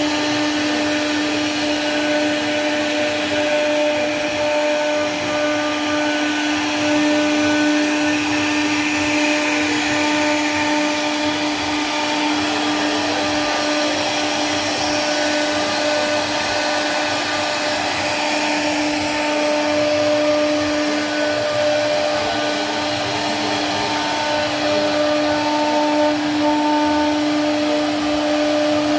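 CNC router spindle whining steadily at a constant pitch as its bit carves relief patterns into a solid-wood wardrobe door panel, with the hiss of the cut running under the whine.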